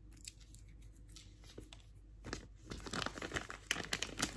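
Clear plastic bag being handled and opened, crinkling: faint at first, then a dense run of crackles from about two seconds in that gets louder.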